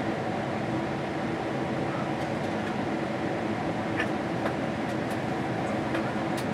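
Steady cabin noise inside a Boeing 777-300ER airliner in descent: engine and air-conditioning rumble with a steady hum, and a few faint clicks in the second half.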